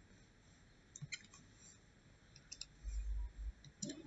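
A few faint computer-mouse clicks while choosing a tool and starting to draw in Paint, with a short low rumble about three seconds in.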